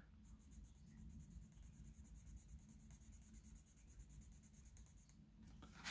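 Faint scratching of a red Bruynzeel Design Colour pencil, worked back and forth on paper in quick, even strokes to lay down a layer of colour. It stops a little after five seconds in.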